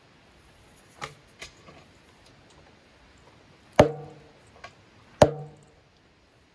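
Sledgehammer blows on metal. A light knock comes about a second in, then two heavy ringing strikes about a second and a half apart.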